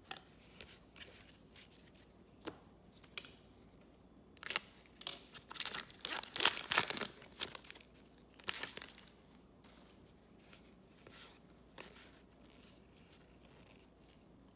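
Foil trading-card pack (2020 Upper Deck Goodwin Champions) being torn open and crinkled, in a cluster of ripping noises from about four to seven and a half seconds in, then a shorter burst near nine seconds.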